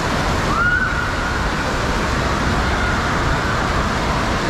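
Indoor water park din: a steady wash of running and splashing water echoing through a large enclosed hall, with faint calls from children in the pools.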